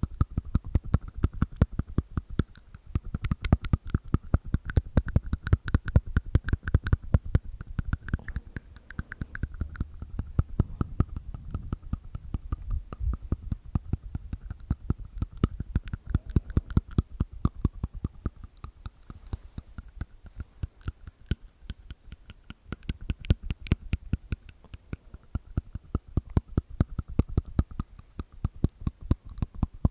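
Close-miked ASMR mouth sounds from inside the mouth: a fast, unbroken stream of clicks from the tongue and teeth.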